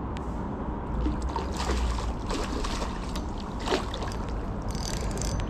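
A hooked pike splashing and thrashing in the shallow water at the bank, in several irregular bursts of splashing, most of them in the middle stretch.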